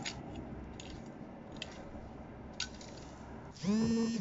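Faint scraping and light clicks of a long-handled garden tool working the soil. Near the end comes a louder brief held note, its pitch rising slightly as it begins.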